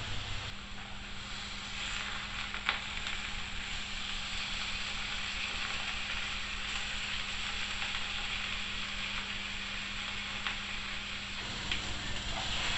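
Chicken breasts sizzling steadily in hot olive oil in a griddle pan, with a few faint clicks as the pieces are turned.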